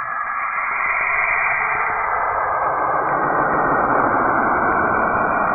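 Space-audio recording presented as the sound of Saturn, planetary radio emissions turned into sound: a steady, muffled rushing hiss with faint drifting tones inside it, growing a little louder over the first few seconds.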